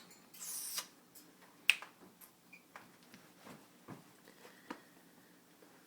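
Pet parrot making small sharp clicks and a short breathy hiss, with one faint chirp, while excited and pinning its eyes.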